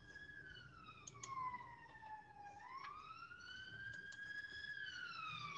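An emergency-vehicle siren wailing faintly, its pitch sliding slowly down, back up and down again. A few faint clicks fall in among the wailing.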